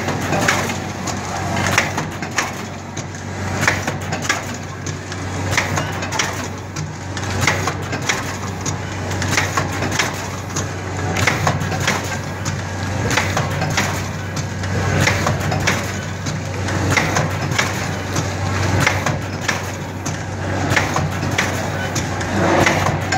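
Vertical form-fill-seal powder packaging machine running: a steady low hum with repeated clacks and knocks, about one every second or so, as it works through its packing cycle.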